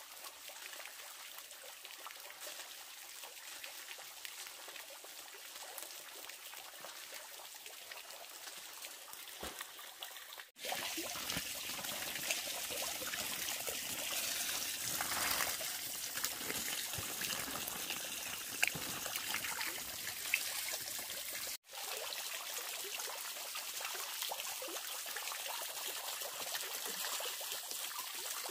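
Steady trickling and splashing of water, a small fountain jet falling into a pond. The sound steps up louder for about ten seconds in the middle, between two abrupt cuts.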